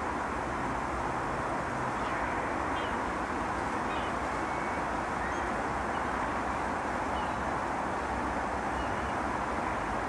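Steady outdoor background rush at an even level, with faint, short high bird chirps every second or two.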